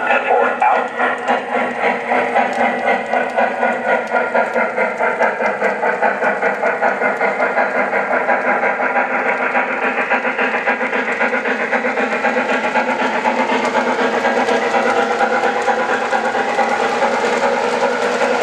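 O scale model of Chesapeake & Ohio Allegheny steam locomotive No. 1650, its onboard sound system playing a steady steam-exhaust chuff. The chuff runs at about four beats a second and blends into a smoother rush later on.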